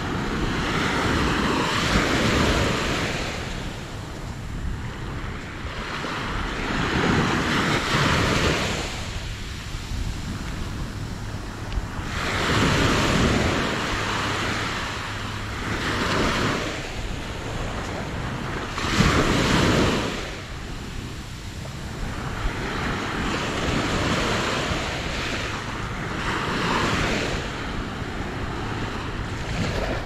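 Small waves breaking and washing up the sand at the shoreline, swelling every five seconds or so, with the sharpest wash about two-thirds of the way through. Wind rumbles on the microphone underneath.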